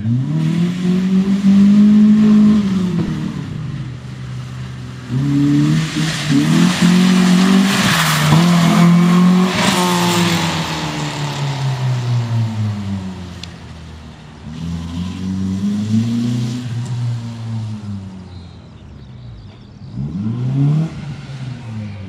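FSO Polonez with a swapped-in BMW 2.0 engine being driven hard, the engine revving up and falling back again and again as the car accelerates and lifts through the course. It is loudest about eight to ten seconds in.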